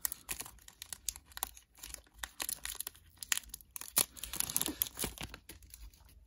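Foil trading-card pack wrapper crinkling and tearing as it is opened, then the stack of cards sliding and rustling in the hands, with scattered sharp crackles, the loudest about four seconds in.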